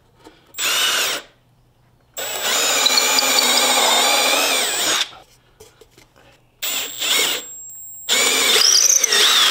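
Cordless Milwaukee drill boring pilot holes through pine 2x4s, running in several bursts: a short one about half a second in, a long run of about three seconds, then shorter runs near the end with the motor pitch shifting.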